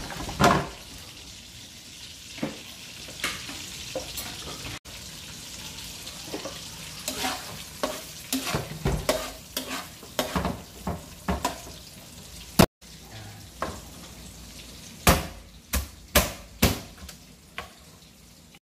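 Chopped ginger sizzling in melted butter in a steel wok, a metal spatula scraping and clicking against the pan as it is stirred. After a cut about two-thirds in, a handful of sharp knocks of a cleaver chopping crab on a plastic cutting board.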